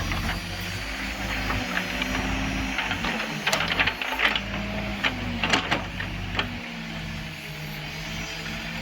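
Backhoe loader's diesel engine running steadily under working load, with a faint wavering whine, and a few sharp clanks and knocks a few seconds in as the machine works.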